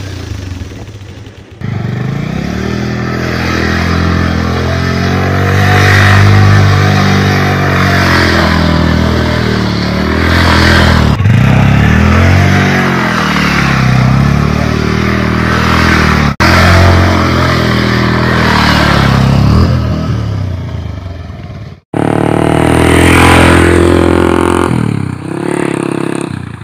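Bajaj Pulsar 180's single-cylinder engine running through an aftermarket Akrapovic silencer, revved again and again with the pitch rising and falling. The sound is broken by several abrupt cuts.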